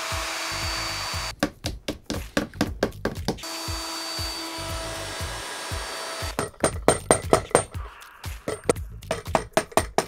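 Electric plunge router running as it cuts the edge of a plywood panel, heard in two stretches: one at the start lasting about a second and a half, and one of about three seconds in the middle. Background music with a steady beat plays throughout and is the only sound in the last four seconds.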